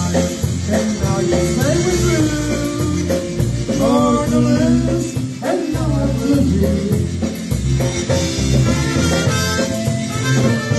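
Live dance band playing an instrumental passage: melody instruments over a steady bass-and-drum beat.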